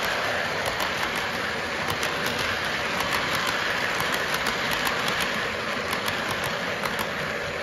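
Lionel O-gauge model train freight cars rolling past on the track: a steady metallic rolling noise from the wheels, with irregular sharp clicks as the trucks pass over the rail joints.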